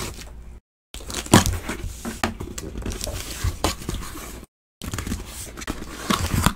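Cardboard case being torn open and handled: tearing and crinkling of cardboard with several sharp knocks, the sound cutting off abruptly now and then.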